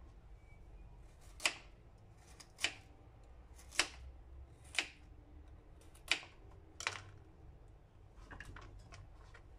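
Kitchen knife slicing through a raw carrot and knocking on a plastic cutting board: six sharp chops about a second apart, then a few lighter clicks near the end.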